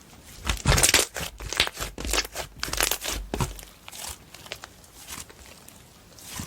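Slime being squeezed and stretched by hand, giving crackling, popping clicks that come thickly for the first few seconds and thin out toward the end.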